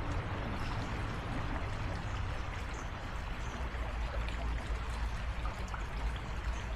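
Shallow creek water flowing and trickling steadily as it divides around a small island, a continuous babbling rush with a low rumble underneath.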